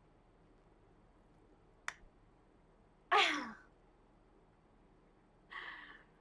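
A woman's short wordless vocal sound, falling steeply in pitch like a sigh, about three seconds in, preceded by a single sharp click; a softer breathy vocal sound follows near the end.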